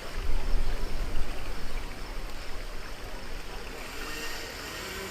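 Rushing, splashing water on the Kali River Rapids raft ride, a steady wash of noise. It is loudest over the first two seconds, with a low rumble and surges, then settles.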